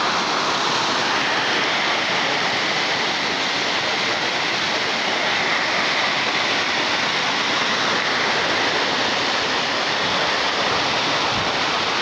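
Small seasonal waterfall cascading over rock close by: a steady, loud rush of falling water.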